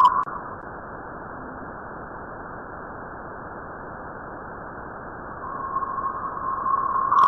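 Spacecraft radio or plasma-wave recording turned into audio: a steady, muffled hiss, with a whistling tone fading in and growing louder over the last couple of seconds.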